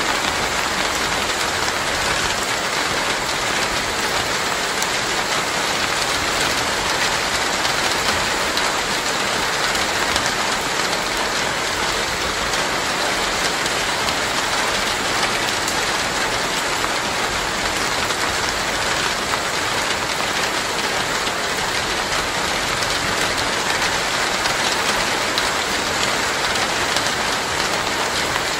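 Heavy, downpour rain falling steadily as a dense, even hiss of drops.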